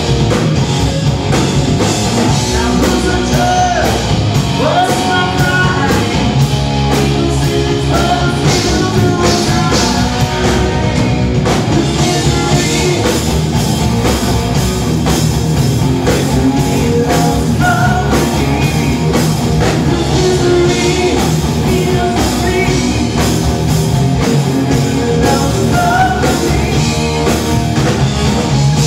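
Live hard rock band playing: distorted electric guitar over a full drum kit, loud and unbroken.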